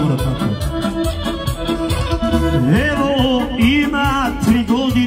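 Live Balkan folk band playing an instrumental kolo dance tune: a wavering, ornamented melody over a steady bass-and-drum beat.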